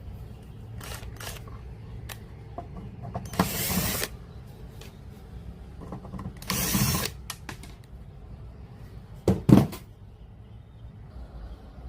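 Scattered clicks and mechanical handling noises on a portable radio cassette player over a low hum, with two short bursts of hiss and two sharp knocks close together near the end.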